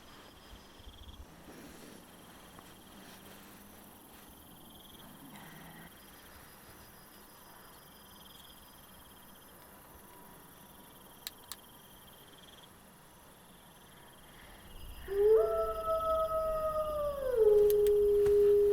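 Night insects chirping faintly, then about fifteen seconds in a long canine howl starts, held on one note before sliding down to a lower held note near the end.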